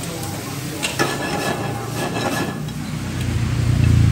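Chopsticks stirring and tossing noodles in a hot wok over a gas burner, with sharp clicks of the chopsticks against the pan in the first half. A low rumble swells and is loudest near the end.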